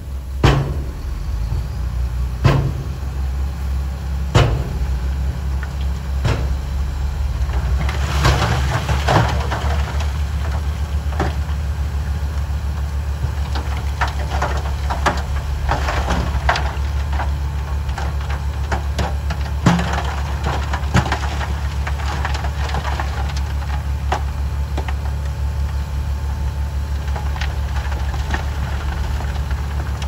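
SHACMAN dump truck's diesel engine running steadily while the hydraulic hoist raises the bed, with scattered knocks and clatters of stone tumbling off the load, densest through the middle of the stretch.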